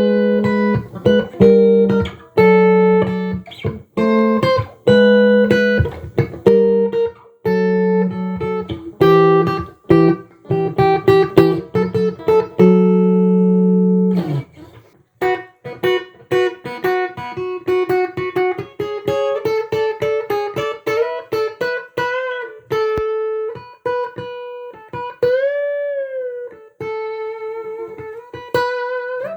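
Tomson Spirit Sounds Stratocaster electric guitar played solo. It plays held chords and double-stops for about the first half, then a quicker single-note melody higher up, with one string bent up and back down near the end.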